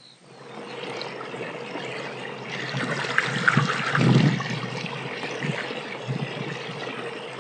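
Water splashing and trickling around a small boat being rowed, with a few low thumps.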